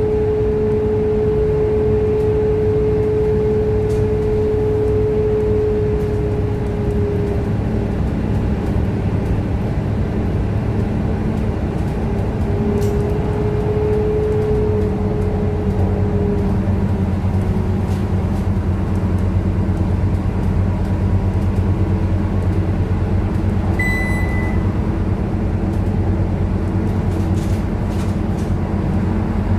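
Scania K230UB single-deck bus cruising at speed, heard from inside the cabin: a steady drone from its rear-mounted five-cylinder diesel and drivetrain, with a high whine that fades out about seven seconds in, returns around thirteen seconds and later settles lower in pitch. A short beep sounds about 24 seconds in.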